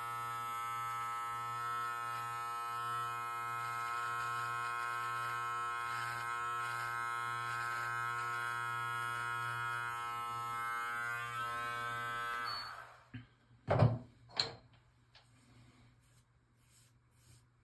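Live Bearded MT-1 cordless beard trimmer running with a steady electric buzz as it is drawn over the neckline in short strokes, then switched off about twelve and a half seconds in. Two short knocks follow a second or so later.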